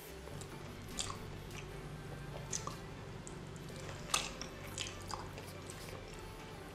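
Wet, squishy sounds of a raw salmon fillet being handled and dipped into a bowl of dipping sauce, with a few scattered sharp wet clicks and drips.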